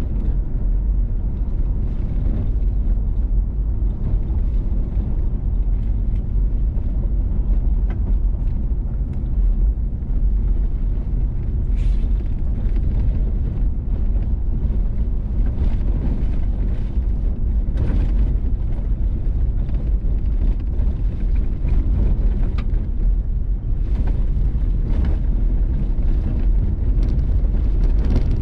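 Vehicle driving on a gravel road: a steady low rumble of engine and tyres on gravel, with several short knocks and clicks along the way.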